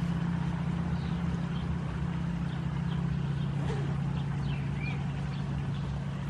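Air Tractor AT-501 agricultural plane's Pratt & Whitney R-1340 radial engine and propeller droning steadily, slowly fading as the plane flies away. A few faint high chirps sound over it.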